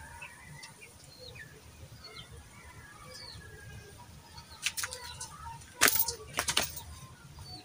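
Birds chirping faintly in the background, short high calls scattered throughout. About five to six seconds in come a few sharp clicks or taps, the loudest sounds here.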